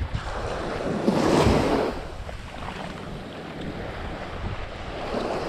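Small surf waves washing up onto a sandy beach, one swelling wash about a second in being the loudest, with wind buffeting the microphone.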